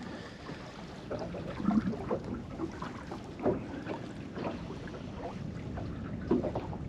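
Water lapping and slapping against the hull of a small fishing boat drifting with its engine off, with a few irregular soft knocks over a steady wash of wind and sea.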